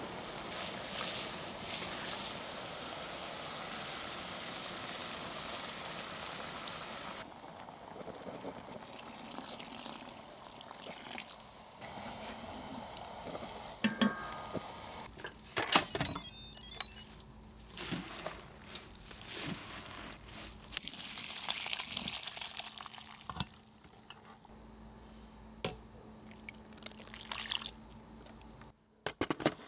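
Onion, ginger and garlic sizzling steadily in a cast-iron pot over a gas flame. The sizzle stops abruptly about seven seconds in, and a utensil then knocks and scrapes in the pot several times, with some liquid pouring.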